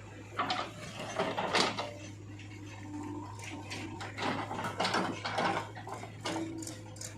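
Backhoe loader working mud: irregular clusters of clicks and scrapes over a steady low hum.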